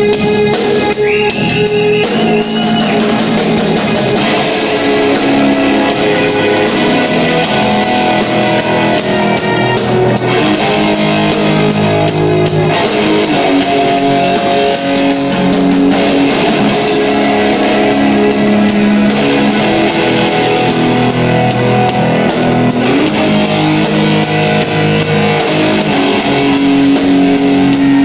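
Heavy rock music with electric guitars and a steady drum-kit beat, played loud and without vocals.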